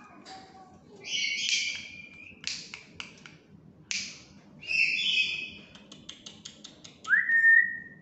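Black-capped lory giving several harsh, screechy calls, with runs of sharp clicks between them and a short rising whistle that levels off near the end.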